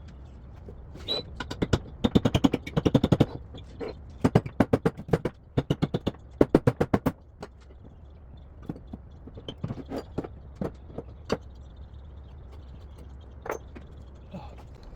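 Hand ratchet wrench clicking in quick runs of strokes, several bursts in a row, then a few scattered single clicks and knocks toward the end.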